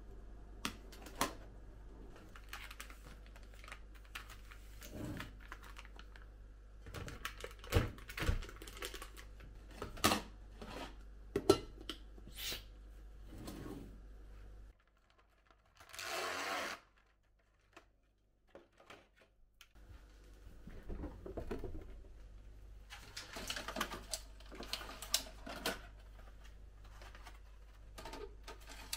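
Groceries being handled and put away: scattered clicks, taps and knocks of plastic containers and packaging set down on a stainless-steel counter, with a brief rustle about halfway through and eggs being placed into a refrigerator egg tray near the end.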